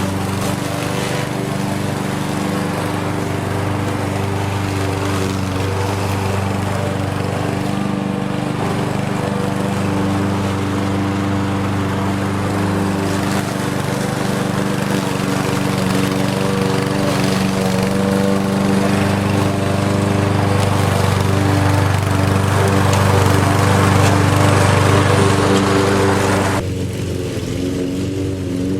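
Lawn mower engine running steadily with a constant hum, growing a little louder and fuller toward the end. Near the end its higher, rougher part drops away suddenly, leaving only the lower hum.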